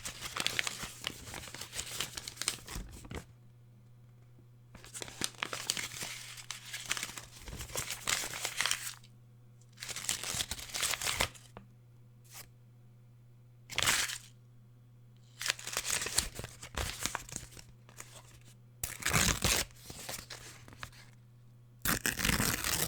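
Paper being torn and crumpled in about seven separate bursts, some a few seconds long and one very short, with pauses between them. A steady low hum runs underneath.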